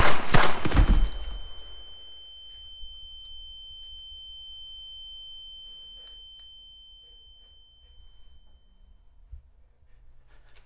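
A single loud handgun shot that rings out and dies away over about two seconds, followed by a high, steady whine that holds for several seconds and then fades: the ear-ringing effect after a gunshot.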